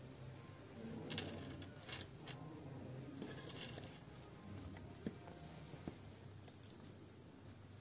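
Faint handling sounds of crocheting: a metal crochet hook working through yarn, with scattered small sharp clicks over a soft rustle.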